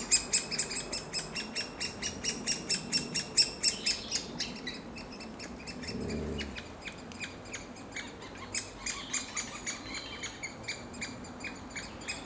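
Great spotted woodpecker chicks calling from the nest hole: a fast, loud, incessant run of high, piercing chirps at about five a second. The calls are loudest over the first few seconds, then go on a little sparser and softer.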